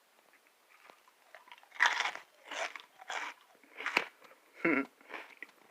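Open-mouthed chewing of Doritos 3D Crunch snacks, puffed hollow corn pieces: a run of about seven crisp crunches that starts about a second and a half in.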